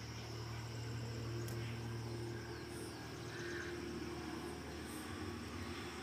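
Faint background ambience picked up by a phone microphone: a steady low hum with a few faint, short high chirps.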